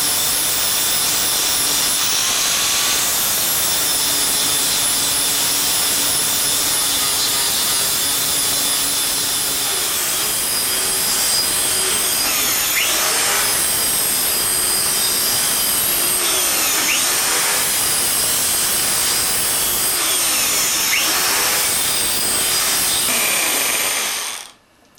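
Electric polishing tool running against stainless steel, a steady high whine over a hiss. In the second half its pitch sags and recovers several times as it is pressed onto the metal, and it cuts off near the end.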